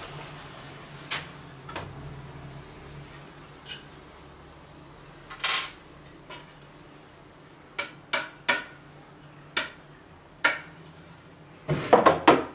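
Claw hammer knocking and clinking against iron nails in a wooden plank as the nails are worked out: scattered sharp metallic knocks, one ringing briefly about four seconds in, and a quick run of louder knocks near the end.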